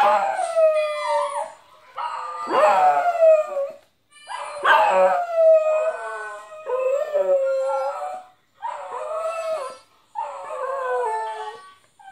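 Dog howling: a run of about six long howls, each one to two seconds, most sliding down in pitch, with short breaths between them.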